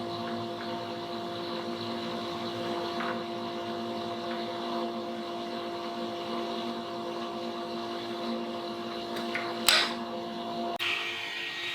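Workshop power tool's electric motor running steadily with a constant hum, a sharp click about ten seconds in, and an abrupt change to a different, higher machine sound shortly after.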